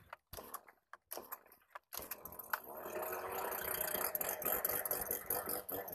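Handheld gas leaf blower being pull-started: a few short cranking pulls with gaps between them, then the engine catches about two seconds in and runs loud and steady.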